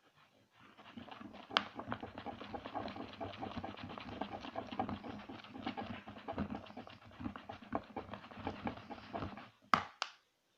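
White-glue slime being squeezed and kneaded by hand: a dense run of wet clicks and squelches, ending with two louder pops near the end.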